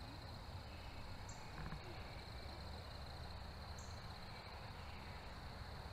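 Night insects trilling steadily in a high pitch over low background noise, with two short, higher chirps about two and a half seconds apart.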